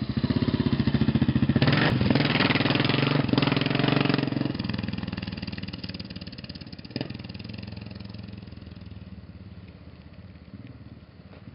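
Motorcycle engine running, loud for the first four and a half seconds, then fading steadily.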